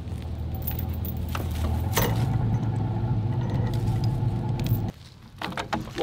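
Toyota Tacoma pickup engine running, picking up revs and getting louder about two seconds in as it takes up the line to pull a log, with a couple of sharp knocks. The engine sound cuts off abruptly about five seconds in.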